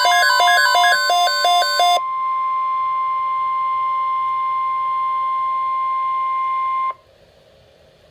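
Emergency alert signal: about two seconds of fast, repeating two-note electronic beeping, then a single steady high-pitched alert tone held for about five seconds. It cuts off sharply into faint hiss about a second before the end.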